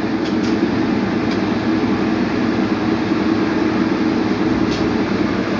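Maytag clothes dryer running, its drum turning on a newly fitted drive belt with a steady motor and drum rumble and a few faint ticks: the dryer that would not spin now turns properly.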